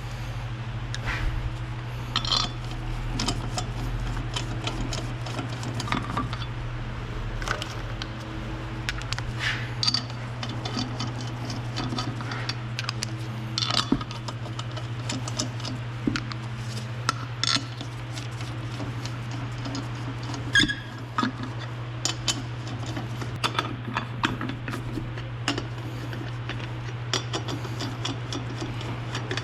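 Hand tools and metal parts clinking and clicking irregularly during workshop car repair, over a steady low hum.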